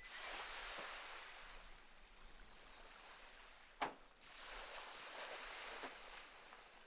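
Small waves washing onto a sandy beach: two soft swells of hiss a few seconds apart. There is a single sharp click between them.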